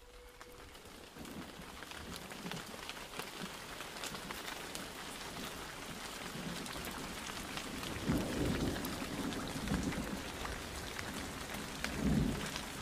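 Rain falling, fading in and growing steadily, with a dense patter of drops and low rumbles of thunder about eight seconds in and again near the end.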